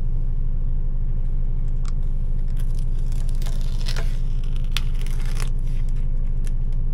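Plastic film being peeled off a ready-meal tray, crinkling and tearing in a run of crackles through the middle, over a steady low hum.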